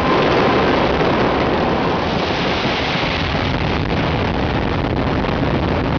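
Large stadium crowd cheering, a loud, steady wall of noise.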